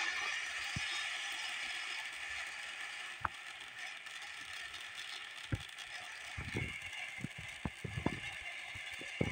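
Hurricane firework fountain burning with a steady hiss of sparks that slowly weakens. From about three seconds in, scattered sharp pops and crackles come through, bunched together near the end.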